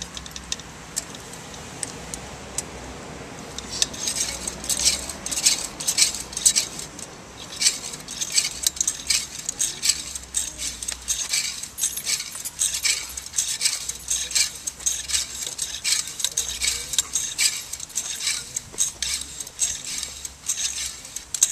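Light metal clinking and rattling from bicycle parts being handled while a tyre is re-seated and re-inflated: a soft hiss for the first few seconds, then quick, irregular clicks and clinks that keep on.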